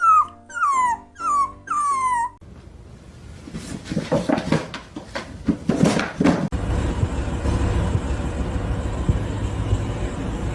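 A dog whimpering: four short cries, each falling in pitch, in the first two seconds. It is followed by scattered knocks and rustling, then a steady low rumbling noise from about two-thirds of the way in.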